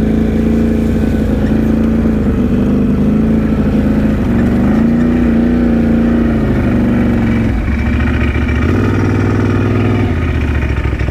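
Can-Am Outlander ATV engine running at low trail speed, its pitch rising and falling with the throttle. It drops back about three-quarters of the way through, picks up for a second or so, then eases off again.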